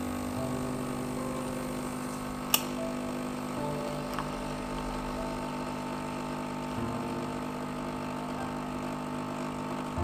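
Nescafé Dolce Gusto capsule machine's pump running steadily as it dispenses into a mug, with one sharp click about two and a half seconds in.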